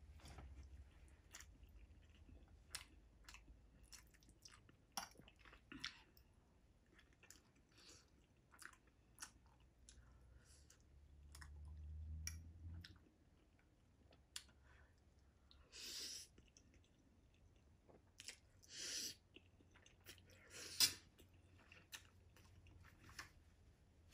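Quiet chewing of ramen noodles with scattered small clicks of a metal fork against a ceramic plate. Three short breathy rushes of air stand out, about halfway through and twice more a few seconds apart.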